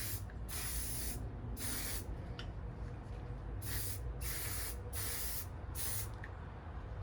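Aerosol can of Maxima SC1 high gloss coating spraying in about six short bursts of hiss, misting the coating onto faded black plastic to restore its finish.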